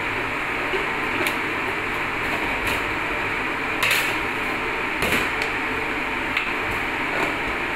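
Steady machine noise, as of a fan or air conditioner, with several short knocks as bread dough is rolled out with a rolling pin on a stainless-steel table; two knocks near the middle are louder.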